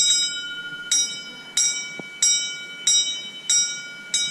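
Small hanging convent hand bell struck in a pattern: a quick double stroke (repique) at the start, then six single strokes (toques) about two-thirds of a second apart, each left ringing. It is one sister's call signal in the Carmelite nuns' bell code, which they use in place of speech under their rule of silence.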